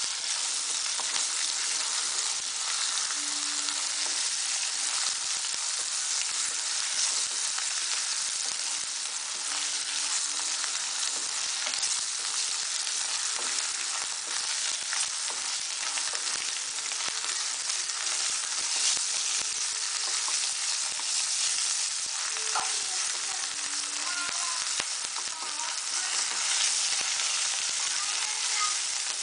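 Onions with ginger-garlic paste and turmeric frying in hot oil in a pan: a steady sizzle with fine crackling. This is the stage where the paste is fried until its raw smell cooks off.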